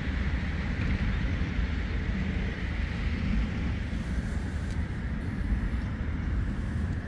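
Steady low outdoor rumble with a broad hiss over it, unchanging and without any distinct event.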